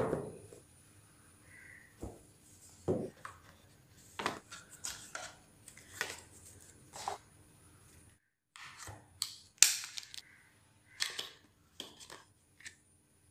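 A cardboard phone box and its paper inserts being handled: a sharp knock as the box is set down at the start, then a string of short taps, clicks and paper rustles, the loudest about two-thirds through.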